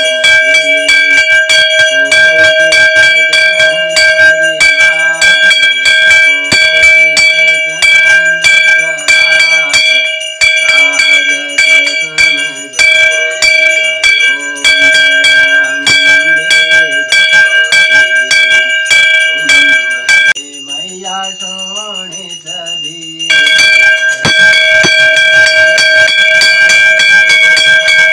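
Temple hand bell rung rapidly and without a break during an aarti, giving a steady ringing tone. The ringing stops for about three seconds near the end, then starts again.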